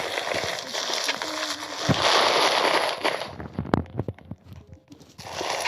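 Crunchy, crackling squish of the 'cloud' ASMR keyboard being typed on, with a handful of sharp key clicks about three and a half to four and a half seconds in before the crackling resumes.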